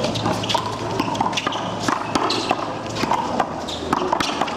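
A one-wall handball rally: many sharp smacks of the rubber ball struck by hand and rebounding off the concrete wall and court, with shoes squeaking and scuffing on the concrete.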